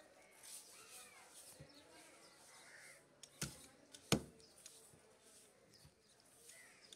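Crows cawing in the background, then two sharp knocks a little after the middle as a heavy fish-cutting knife chops into a large fish on the wooden cutting block.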